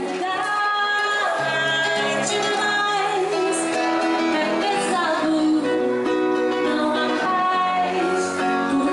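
A woman singing into a microphone, accompanied by a strummed acoustic guitar, performed live.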